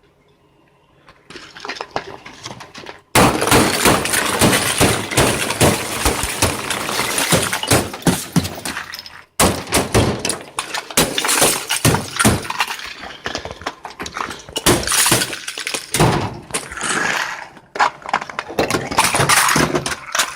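Thick ice being broken and scraped off a frozen car, a dense run of cracking, crunching and scraping. It starts faint, turns loud suddenly about three seconds in, and breaks off for a moment about halfway through.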